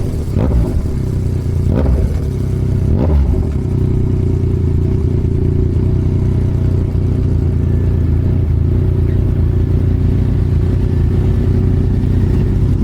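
Yamaha MT-09's three-cylinder engine through a Toce full exhaust, giving a few short pops in the first three seconds, then running steadily at an even pitch.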